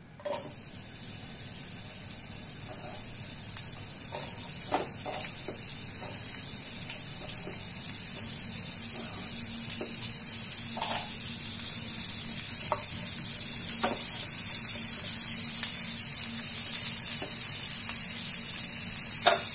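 Chopped onion frying in hot oil in a nonstick pan. The sizzle starts suddenly as the onion goes in and grows gradually louder as the oil heats, with scattered sharp clicks and a spatula stirring near the end.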